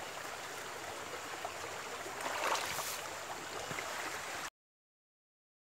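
Small mountain stream flowing, a steady rush of water that swells briefly louder about halfway through and cuts off suddenly near the end.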